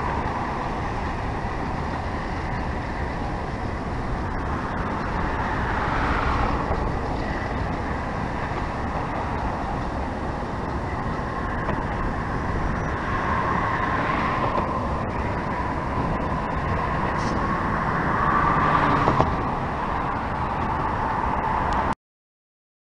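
Steady outdoor rumble of a slow-moving train of bilevel passenger cars rolling through the rail yard, mixed with passing road traffic, swelling a few times. It cuts off abruptly about a second before the end.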